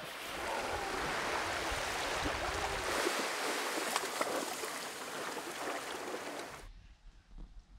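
Small waves washing on a sandy beach, a steady hiss of surf that drops away suddenly near the end.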